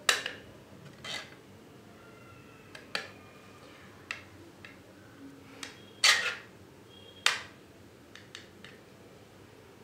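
3D-printed plastic sliding card wallet being worked by hand: a series of sharp plastic clicks and snaps with short scraping slides as the cards are slid out and the case is clicked shut. The loudest snap comes about six seconds in, and a few lighter ticks follow near the end.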